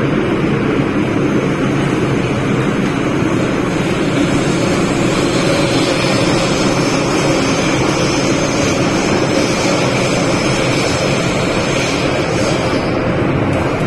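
Cabin noise of an MTR M-train electric multiple unit running at speed in a tunnel: a loud, steady rumble and hiss of wheels on rails and running gear, with a faint steady hum underneath.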